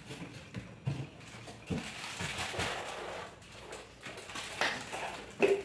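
Kitchen handling noise: a plastic bag rustling and light knocks as packets and a stand mixer are moved about, with a rustle lasting about a second near the middle.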